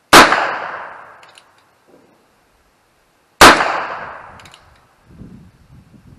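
Two gunshots about three seconds apart, each with a ringing echo that dies away over about a second and a faint tick about a second after the shot.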